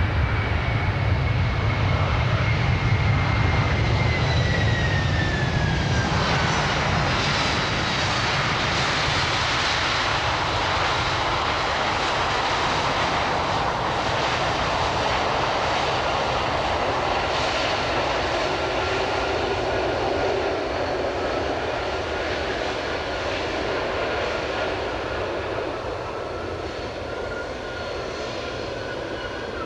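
Boeing 767-300 jet engines running loud as the airliner rolls out along the runway after touchdown. A whine falls in pitch over the first few seconds under a continuous roar, and a steadier, lower whine carries on near the end as the roar eases a little while the jet slows.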